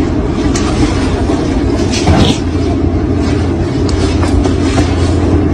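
Machinery running with a loud, steady low rumble and scattered rattling clicks, with a brief louder noisy burst about two seconds in.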